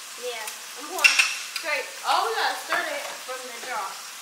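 Food sizzling in a pot on a gas stove, a steady hiss, with indistinct voices talking over it and a brief click about a second in.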